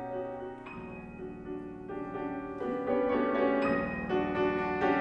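Stuart & Sons grand piano played four-hands: a classical passage of held chords with new notes struck about once a second, growing louder near the end.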